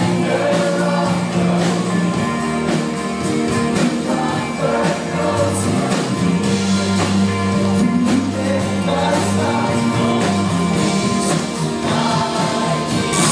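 Contemporary Christian worship song: a band with drums playing while voices sing.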